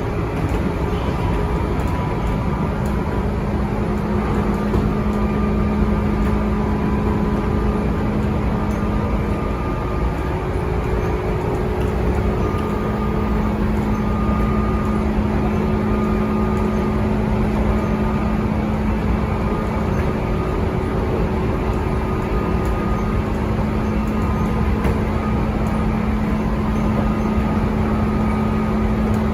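Tobu 9000 series electric train heard from inside a motor car: running rumble with the steady hum of its armature chopper control over it, sounding as a normal chopper should after a fault that had made it sound like a JR 201/203 series chopper.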